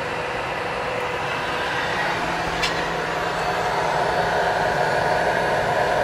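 Compaq ProLiant DL360 G2 rack server running, its cooling fans giving a steady whir and hum. A lower hum joins about two seconds in and the sound grows slightly louder, with one faint click shortly after.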